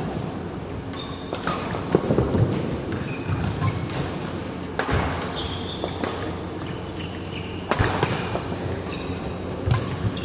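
Badminton doubles rally: the shuttlecock is struck sharply by rackets several times, with players' shoes squeaking and thudding on the court between the hits.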